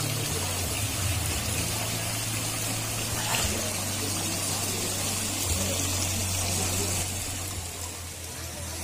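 Water splashing and trickling steadily over the stones of a small garden-pond waterfall, with a low steady hum underneath.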